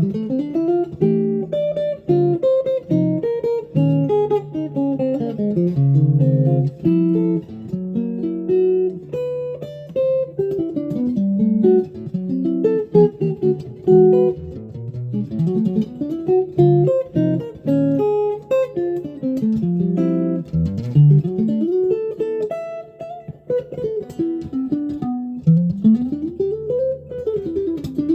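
Solo guitar practice: single-note runs and chords, with fast scale-like runs climbing and falling in pitch toward the end.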